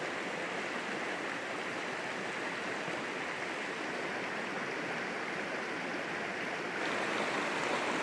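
Rocky mountain trout stream rushing over a shallow riffle in a steady wash of water. About seven seconds in, the rush gets a little louder and brighter.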